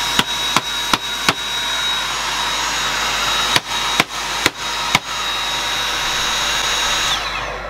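Dyson V7 Motorhead stick vacuum's motor running with a steady high whine, broken by about eight sharp knocks as the unit is thumped to shake dust loose from the cyclone. Near the end the motor stops and its whine falls away as it spins down.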